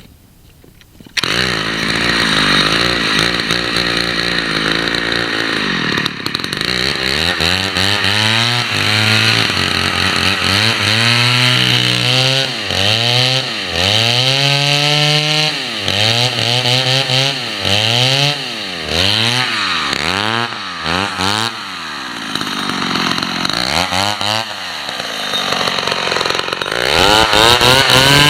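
Two-stroke chainsaw engine catching about a second in and running, repeatedly revved up and let back down, then revved higher again near the end.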